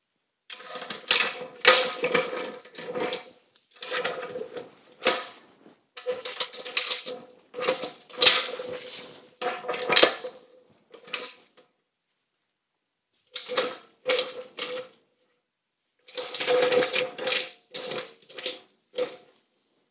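Metal clanking, rattling and scraping as a steel pressure pot's lid is seated and its wing-nut clamps are swung up and fastened. The sounds come in irregular clusters, each knock drawing a short ringing note from the pot, with a couple of brief pauses.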